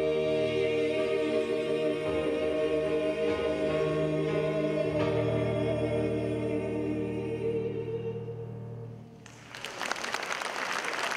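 A small vocal group of women and men singing together into microphones, ending on long held notes that fade out about nine seconds in. Audience applause breaks out right after.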